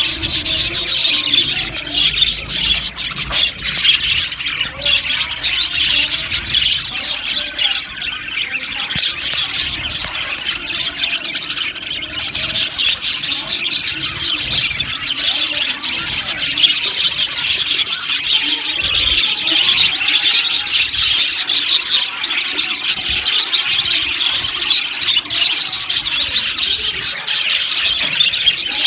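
A flock of budgerigars chattering together, a dense, continuous mix of high-pitched chirps and warbles that never pauses.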